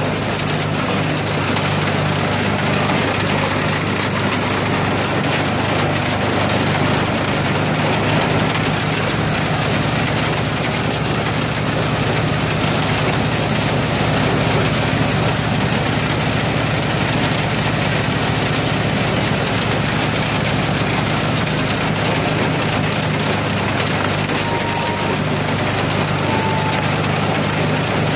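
Homemade firewood processor running steadily: its hydraulic power unit drones with a constant low hum while the hydraulic chainsaw cuts through a log and the splitter forces rounds through the wedge.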